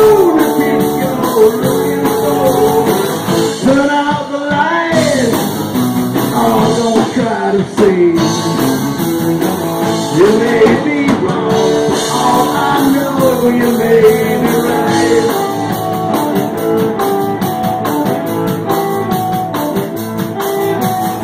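Live rock band playing an instrumental break, with electric guitar, bass and drum kit, loud and continuous.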